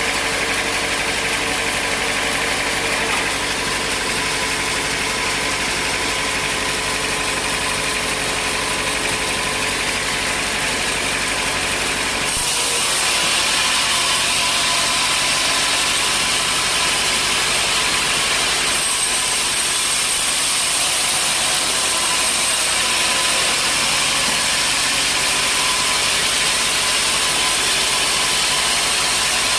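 Sawmill machinery running steadily with an engine-like hum and hiss. The sound shifts abruptly twice, about twelve and nineteen seconds in, becoming hissier with less low hum.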